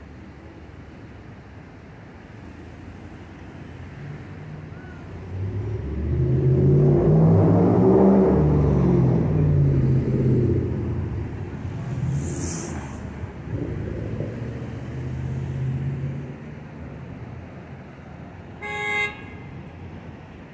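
Street traffic: a motor vehicle passes close, its engine note rising then falling and loudest about eight seconds in, followed a few seconds later by a short hiss. Near the end a car horn gives one brief toot.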